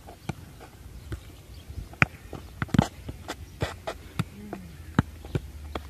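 A football being juggled and kicked on an asphalt court: a run of irregular sharp thuds as the ball strikes feet and bounces on the hard ground, the loudest about two seconds in, just before three seconds and at five seconds.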